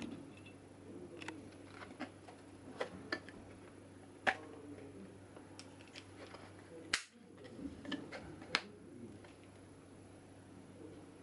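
Scattered clicks and taps of a black plastic mini bicycle pump being handled, its head and mounting bracket knocking and clicking, with a few sharper clicks about four, seven and eight and a half seconds in. A steady low hum runs beneath.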